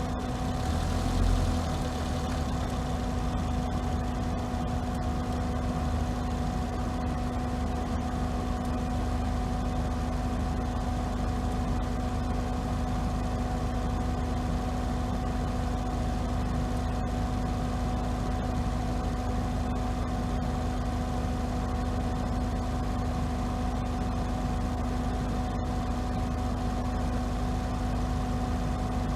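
Volvo S40 car engine running at a steady, unchanging speed: a constant low hum and rumble, with a brief swell about a second in.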